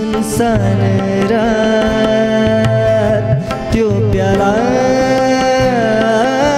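Live Nepali ghazal: a man singing, his voice bending and wavering through melodic turns, over held harmonium chords and tabla strokes.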